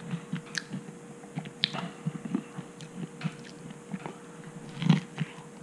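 Close-up mouth sounds of chewing a veggie bean-burger sandwich, with small irregular crunches from the sliced cucumber and onion. A louder bite or chew comes about five seconds in.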